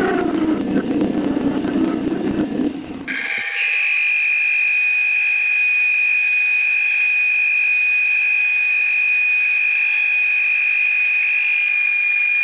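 Metal lathe taking a facing cut across the end of a steel bar, a rough grinding noise, for about three seconds. It then gives way abruptly to a steady high-pitched whine that holds unchanged for the rest of the time.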